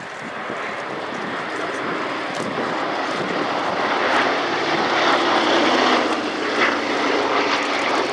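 Boeing B-17G Flying Fortress's four Wright R-1820 Cyclone radial piston engines running as the bomber banks and passes overhead, growing louder to a peak about six seconds in, then easing slightly.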